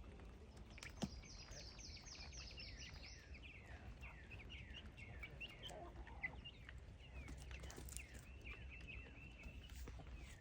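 Baby chicks peeping: a steady stream of short, falling peeps, with a quick run of higher peeps in the first few seconds and a few faint taps.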